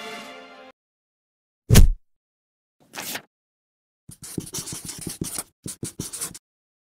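Background music cuts off, then a single heavy thud, then a short swish. After that a felt-tip marker scratches across paper in quick strokes for about two seconds, writing out words.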